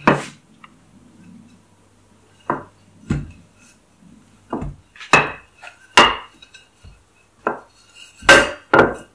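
Wooden rolling pin rolling out pizza dough on a silicone baking mat: a string of about nine sharp knocks and short rolling strokes at irregular intervals, the loudest two near the end.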